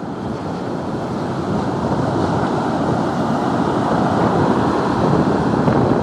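Heavy storm surf whipped up by an approaching typhoon, breaking and rushing on a sandy beach, mixed with wind buffeting the microphone. The rush swells gradually louder.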